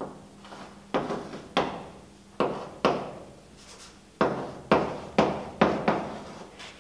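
Chalk writing on a blackboard: about ten sharp taps and short scrapes at an uneven pace as a number and a word are chalked, the strokes coming quicker in the second half.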